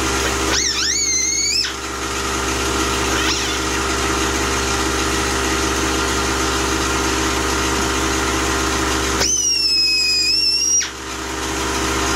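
Pneumatic air cut-off tool cutting stainless braided hose. A high whine rises as the wheel spins up about half a second in, steady grinding follows, and a second free-spinning whine comes near the end.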